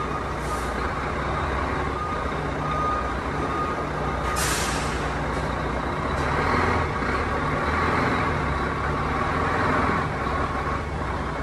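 DAF truck's diesel engine running at low revs while manoeuvring slowly, with a reversing beeper sounding on and off. A short sharp air-brake hiss comes about four seconds in.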